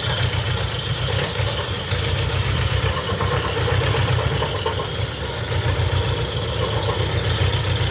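Diesel engine of an excavator or tractor running steadily, its level swelling and easing every few seconds.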